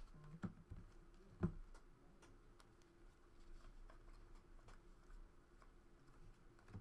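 Near silence with a few faint, sharp clicks and taps, the clearest about half a second and a second and a half in, then sparse light ticks.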